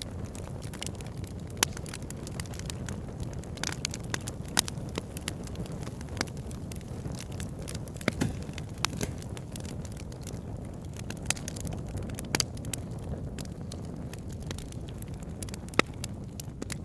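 Wood campfire burning, the firewood crackling with scattered sharp pops over a steady low rumble.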